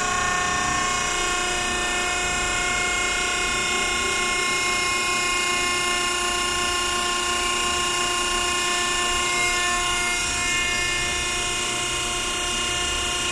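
Hydraulic power unit running: electric motors driving gear pumps with a steady multi-tone whine, while the system pressure is being set at the relief valve. The tones shift slightly about a second in and again near the end.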